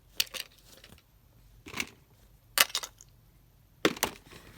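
Fidget toys knocking and clattering as they are handled and set down into their storage, in four short bursts of sharp clicks about a second apart.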